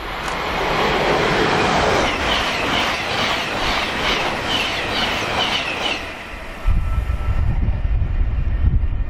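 CrossCountry Voyager diesel multiple unit passing through the station at speed: a loud rush of engine and wheel noise with a quick run of wheel clicks, about three a second, over rail joints, cutting off about six seconds in. A jagged low rumble of wind buffeting the microphone follows in its wake.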